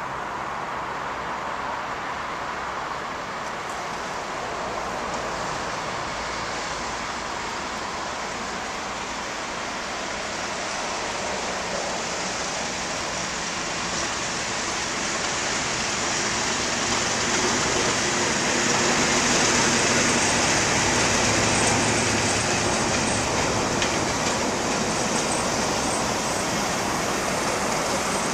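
Class 37 diesel-electric locomotive, with its English Electric V12 engine, approaching at the head of a passenger train and passing, getting steadily louder, followed by the coaches' steel wheels hissing and clattering along the rails as the rake rolls by.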